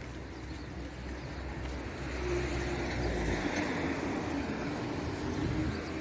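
A motor vehicle passing, its engine hum growing louder about two seconds in, over steady outdoor noise.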